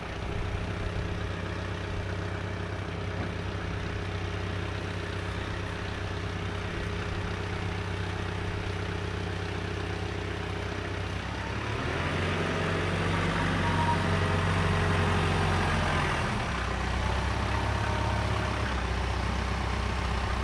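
John Deere compact tractor's diesel engine running steadily as the tractor carries a plywood sheet on its loader forks. About halfway through, the engine revs higher for a few seconds while the loader raises the sheet, then settles back down.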